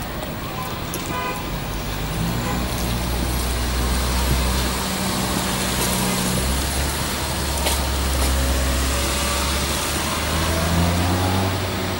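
Street traffic: cars going past with a low engine rumble that swells and shifts as each vehicle passes.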